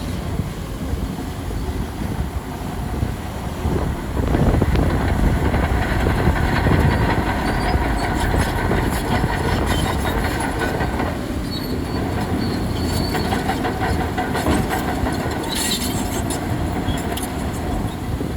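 Bulldozer working: diesel engine running under load while the steel tracks clank and squeal. It gets a little louder about four seconds in.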